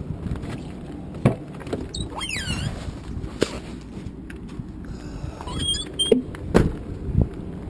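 A car's doors being opened and handled: several sharp knocks and clunks, with brief squeaks about two seconds in and again around six seconds, over steady outdoor rumble.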